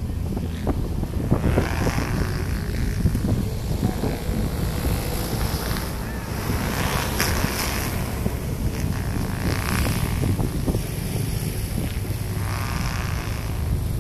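Wind buffeting the microphone: a steady low rumble with hissy swells every few seconds.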